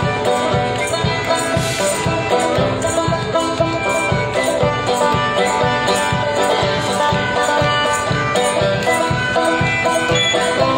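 Banjo and melodica playing a bluegrass-style tune together, the melodica holding long notes over the picked banjo, with a steady low bass-drum beat underneath.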